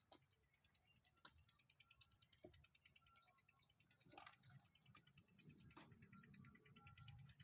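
Near silence with a faint bird chirping over and over, about two short chirps a second, and a few faint clicks.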